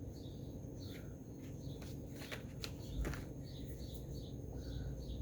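Faint, repeated short bird chirps over a low steady hum, with a couple of light clicks about two and three seconds in.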